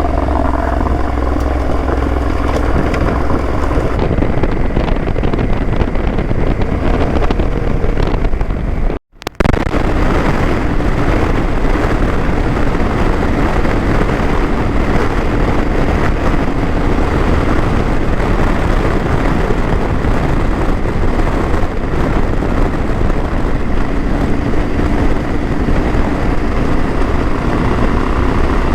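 Yamaha Tenere 700's 689 cc parallel-twin engine and exhaust running steadily under way, mixed with wind on the microphone. The sound drops out for a split second about nine seconds in.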